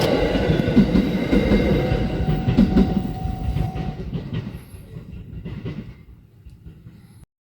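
Train on the JR Shikoku Yosan Line passing over a level crossing, its wheels clicking over the rail joints and the sound fading steadily as it moves away. The sound cuts off suddenly near the end.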